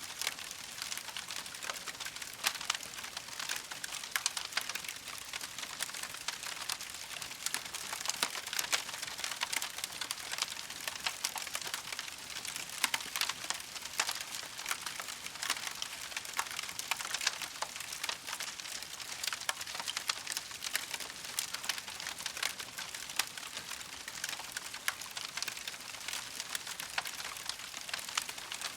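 Campfire crackling: dense, irregular snaps and pops over a steady hiss.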